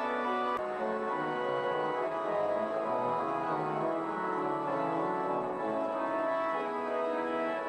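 Pipe organ playing a processional: sustained full chords held over a slowly moving bass line.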